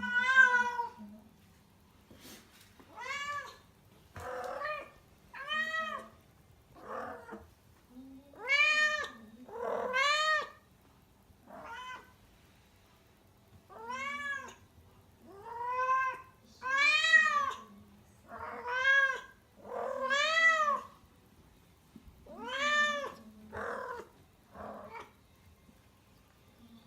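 Female house cat in heat calling: a string of loud meows, each rising then falling in pitch, one every second or two with short gaps between.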